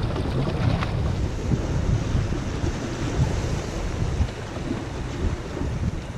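Wind buffeting the microphone in a rough, gusty rumble, over seawater washing against breakwater rocks.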